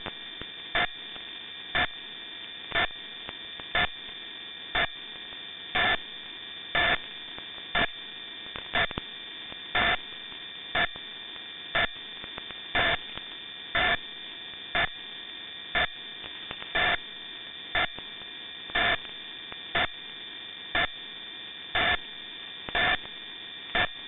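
Radio receiver tuned near 75 kHz in the longwave band: steady hiss with several constant high-pitched whistling carrier tones, and a pulse of noise about once a second, some pulses short and some roughly twice as long, like a time-signal code.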